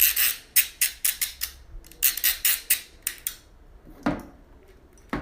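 Ratchet cable cutter clicking a dozen or so times as its blade is pushed forward through the ratchet by hand, followed by a duller knock about four seconds in.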